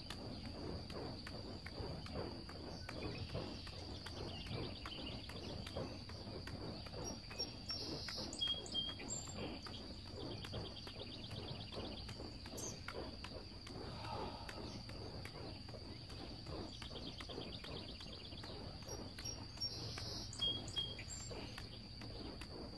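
Early-morning field ambience: birds trilling every few seconds, with two louder sharp calls, over a steady high whine. Beneath them a steady run of soft whooshes and thuds from three flaming torches being tossed and caught in a juggling pattern.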